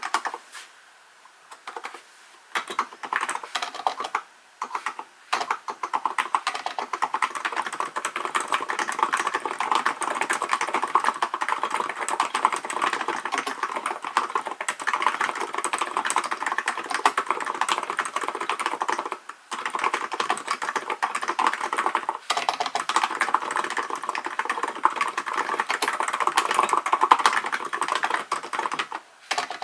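Fast continuous typing on a Hansung GK898B electro-capacitive (Topre-style) keyboard: rapid keystrokes with a few short pauses. The first couple of seconds hold only a few scattered keystrokes before the steady typing starts.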